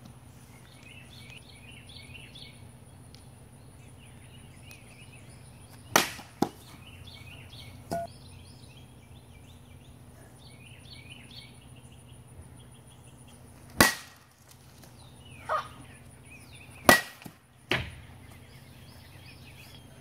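A baseball bat smacking a pitched Coke bottle: three sharp hits, about six, fourteen and seventeen seconds in, each followed a moment later by a softer knock.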